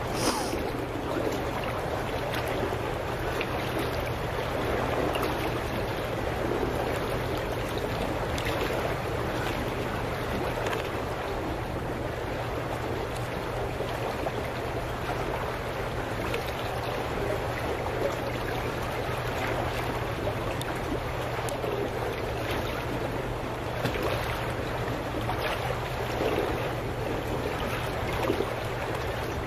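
Dock bubblers churning the water: a steady rushing, gurgling wash with a low, steady hum underneath.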